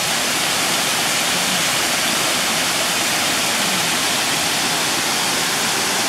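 Erawan waterfall cascading over a rock ledge and splashing into the pool below: a steady, unbroken rush of water.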